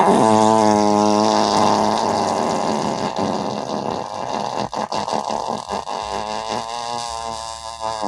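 A long simulated fart sound effect: a pitched, slightly wavering tone for about the first two seconds, which breaks into a rougher, sputtering flutter that slowly fades.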